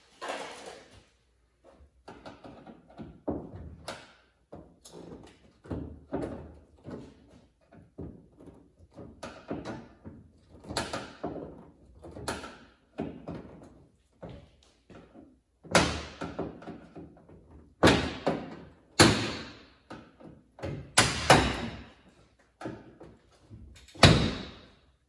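Sheet-metal car roof panel being knocked and worked loose: irregular thumps and bangs, about one or two a second, the loudest ones in the second half.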